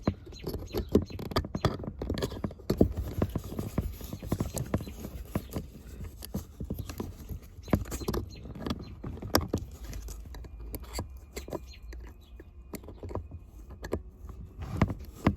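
Irregular clicks, taps and scrapes of small screwdrivers working against the plastic locking tabs of a 12-volt power outlet in a car's center console trim.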